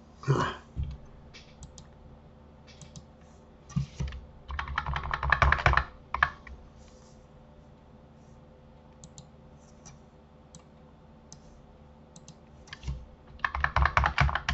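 Computer keyboard keys being pressed: a quick run of keystrokes about four seconds in and another near the end, with scattered single clicks between.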